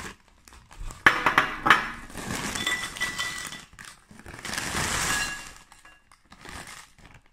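Potato chips being tipped from a crinkly plastic bag into a bowl. Sharp clinks and rattles come about a second in as chips hit the bowl, then a longer rustling pour with the bag crinkling around five seconds in.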